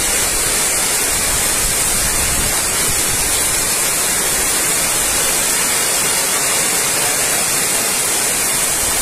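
Heavy tropical downpour falling steadily: a loud, even hiss with no let-up.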